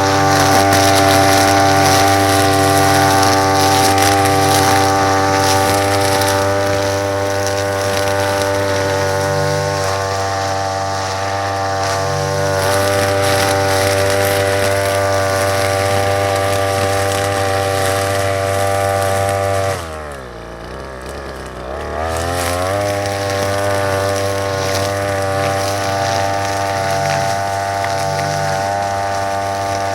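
Small engine of a brush cutter fitted with 2.7 mm nylon line, running steadily at high speed. About two-thirds through, its speed drops sharply for a couple of seconds, then climbs back up to full speed.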